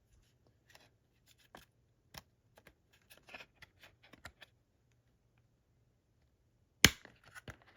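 Faint rubbing and small clicks from a steelbook case and its Blu-ray discs being handled, with one sharp click a little before the end.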